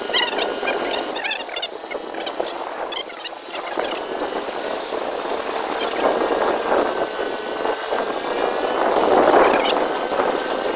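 Motorbike riding along: engine running under steady road and wind noise, with short high squeaks in the first few seconds and a swell in loudness about nine seconds in.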